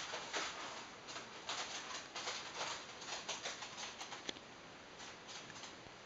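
Eclectus parrot's feet and a small bead pattering and scuffing on a wooden floor: an irregular string of short, faint scratchy clicks, several a second, thinning out after about four seconds.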